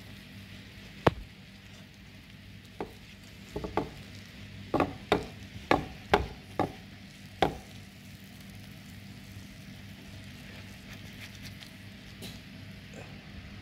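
A spatula working under a crisp rice crust in a frying pan makes about a dozen sharp taps and cracks over the first eight seconds, against a faint steady sizzle.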